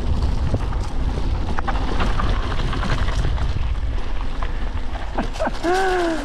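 Mountain bike rolling downhill on dry dirt singletrack: tyres rumbling over the trail, the bike rattling and knocking over bumps, and wind buffeting the microphone. Near the end a short pitched tone rises and falls.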